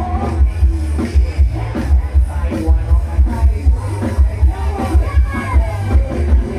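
Live band on a Thai mobile sound-truck stage playing loud amplified dance music through a large PA system, with a steady heavy bass beat and a singer's voice over it.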